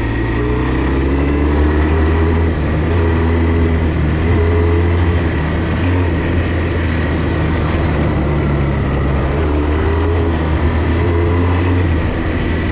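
Barossa 250 quad's engine running steadily while the quad rides along a dirt track, its note wavering a little as the throttle changes.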